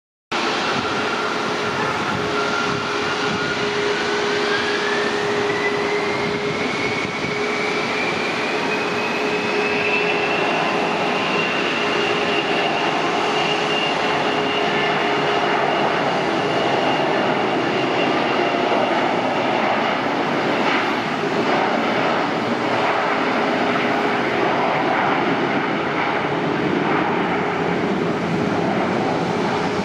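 Gulfstream G650ER business jet's twin Rolls-Royce BR725 turbofans at takeoff thrust as it accelerates down the runway. It makes a steady jet rumble with a steady lower hum beneath. A whine climbs in pitch over roughly the first ten seconds as the engines spool up, then holds steady.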